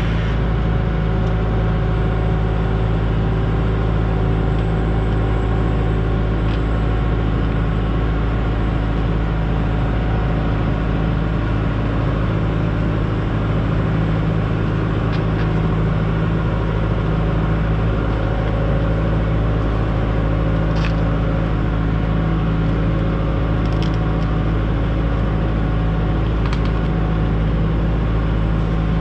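Excavator's diesel engine running at a steady speed, with a few faint clicks through it.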